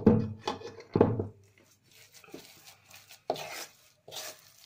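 A spoon scraping sticky amaranth-and-mawa sweet mixture out of a kadhai into a steel plate: a few short scrapes, two close together at the start and two more near the end.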